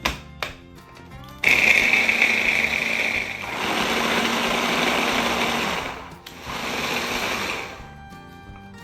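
Food processor motor running in two goes: a long run of about four and a half seconds, a brief stop, then a shorter run of about a second and a half. Background music plays underneath.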